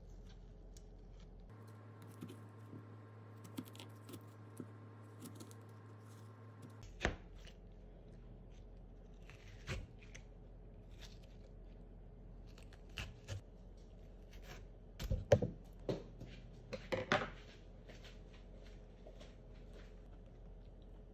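Knife and spoon cutting and scraping around a hard peach stone, with scattered short clicks and knocks of metal utensils against the cutting board. A cluster of louder knocks comes about three-quarters of the way through, over a faint steady hum.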